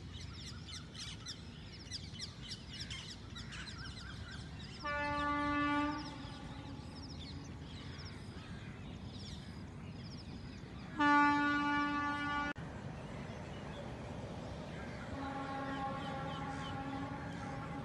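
A train horn sounding three times: a steady blast about five seconds in, a louder one about six seconds later that cuts off abruptly, and a fainter, longer one near the end. Birds chirp in the first few seconds.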